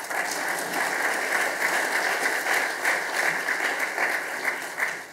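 An audience applauding: dense clapping that dies away near the end.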